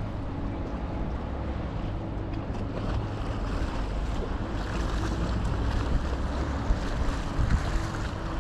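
Steady low drone of the Bastø VI car ferry's engines under way, with water rushing past the hull and wind buffeting the microphone, a few louder gusts near the end.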